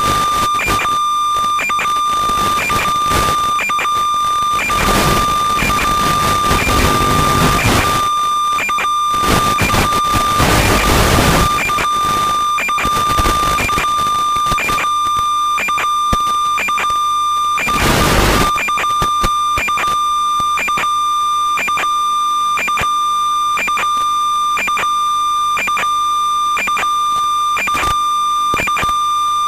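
Audio channel of an analog FPV video link recorded by the DVR: a steady high-pitched whine with regular clicks, broken by loud bursts of static hiss through the first third, again around the middle, and briefly a little after that. It is the sound of radio interference on the analog video signal.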